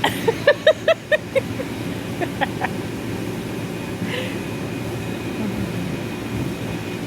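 A short burst of laughter, five or six quick pitched syllables in about a second, with a few fainter ones a second later, over a steady low rumble.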